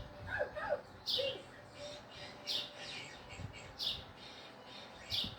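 Bird-like chirps repeating evenly, four in a row at about one every second and a quarter, with a few short lower warbling notes near the start.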